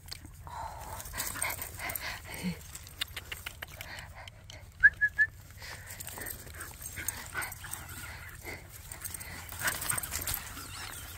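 Dogs greeting: soft whining, with three quick high yips about five seconds in, over small clicks and rustles.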